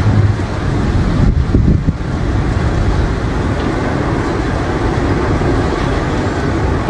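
Tornado wind blowing hard, a steady, dense low rumble without breaks, the kind of freight-train-like noise a nearby tornado makes.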